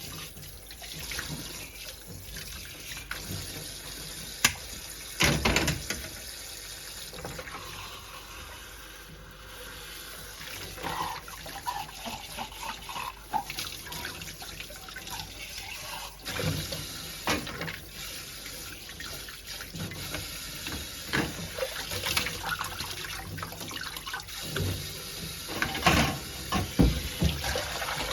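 Water running and splashing, with scattered knocks and clinks, the loudest about five seconds in and again near the end.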